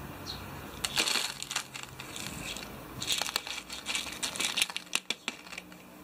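Small coloured gravel stones clattering and rattling against a plastic toy dump truck and the tabletop: a burst about a second in, then a longer run of clicks from about three seconds to nearly five.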